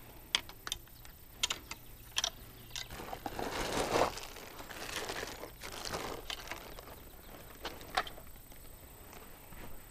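Plastic bag crinkling and rustling as fishing gear is handled and packed, loudest about four seconds in, with sharp clicks and knocks scattered through.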